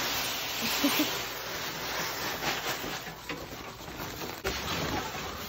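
Cracked corn pouring from a cloth sack into a large barrel: a steady rush of falling grain, with a single knock near the end.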